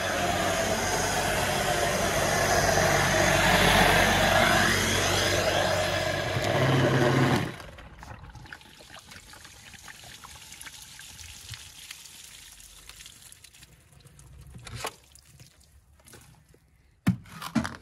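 Electric submersible drainage pump running with a steady hum while water rushes through its hose, then cut off suddenly about seven seconds in. A few knocks follow near the end as the pump is handled.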